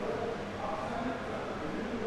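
Indistinct murmur of many voices in a large, reverberant exhibition hall, with no single voice standing out.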